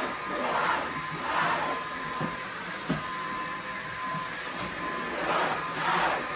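Stick vacuum cleaner running, its whine swelling and fading as it is moved back and forth, with two light knocks about two and three seconds in.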